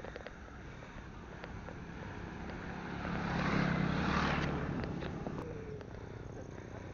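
A motor scooter passes close by. Its small engine and tyre noise swell to a peak about three to four seconds in, then fade away.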